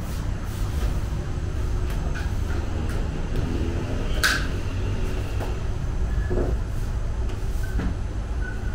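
Fire in a clay tandoor oven burning with a steady low rumble. A sharp click sounds about four seconds in.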